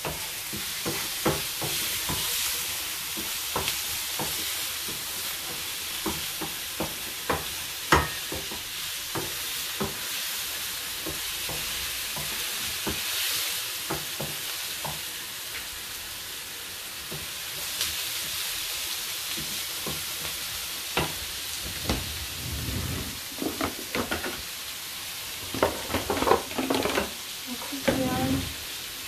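Vegetables frying in a frying pan on a gas hob, a steady sizzle, as a wooden spoon stirs them and knocks against the pan. The knocks come more often and louder over the last few seconds.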